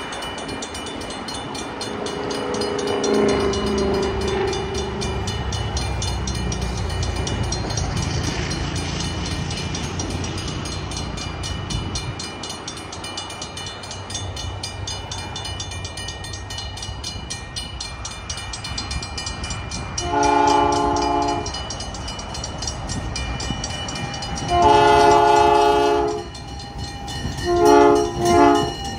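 ALCO RS-11 diesel locomotive's air horn blowing the grade-crossing signal as the train approaches: two long blasts, a short one, then a last blast starting near the end. Before the horn, a low rumble of passing road traffic.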